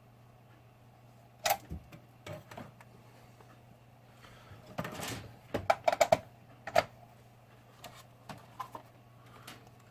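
Irregular clicks and knocks of objects being handled on a workbench, with a quick cluster of clicks about five to six seconds in, over a low steady hum.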